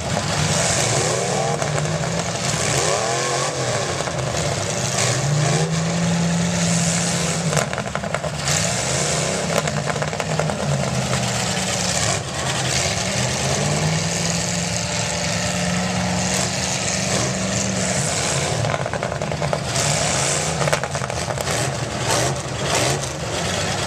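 Demolition derby cars' engines revving up and down again and again as they drive and ram each other, with scattered thumps and bangs of impacts, more of them in the last few seconds.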